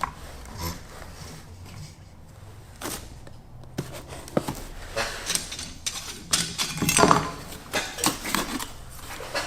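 Parts of a Work Sharp Ken Onion Edition knife and tool sharpener and their packaging being handled: scattered light clicks, knocks and rustling, sparse at first and busier in the second half.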